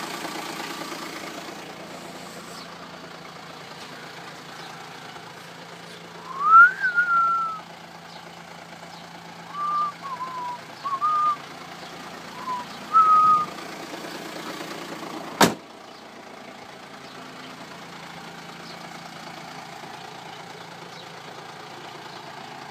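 Renault Espace IV's 2.2 dCi four-cylinder turbodiesel idling steadily. Between about 6 and 13 s a few short whistling tones come through, louder than the engine, the first one rising then levelling off. A sharp click at about 15 s.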